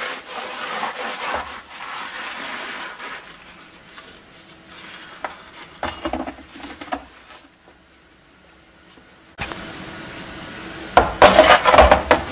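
A wet sponge scrubbing a lathered steel helmet shell, with rough rubbing strokes for about three seconds, then lighter scattered handling knocks. Near the end comes a short cluster of loud knocks and clatters on the plastic tray.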